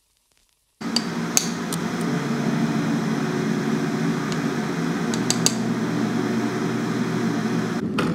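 Smeg electric kettle heating water: a steady rushing noise over a low hum that cuts off just before the end. A few light clinks from a small metal spoon scooping matcha powder from a tin sound over it.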